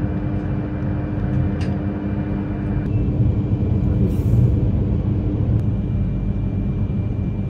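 Yamagata Shinkansen Tsubasa train running, a steady low rumble with a faint steady whine over it.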